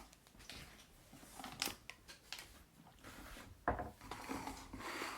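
Light handling noises: a few soft clicks and some rustling, as chips and ketchup are got ready for tasting.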